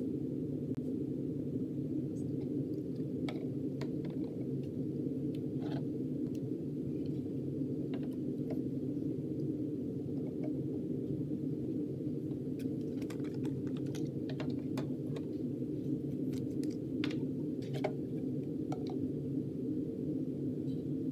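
Scattered light clicks and taps of small essential oil bottles and plastic soap bottles being set down and handled on a tabletop, most often in the second half, over a steady low hum.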